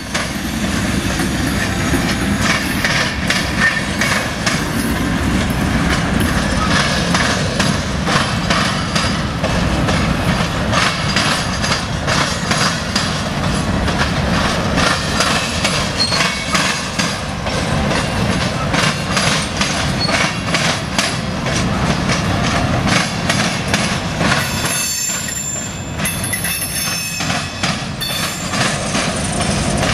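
Freight train cars rolling over a railroad diamond crossing, their wheels knocking over the crossing in a continuous, rapid clatter over a steady rumble.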